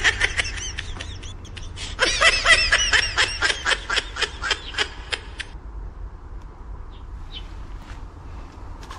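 Laughter in rapid repeated high-pitched bursts, loudest from about two seconds in, stopping about five and a half seconds in. A faint outdoor background follows with a few faint chirps.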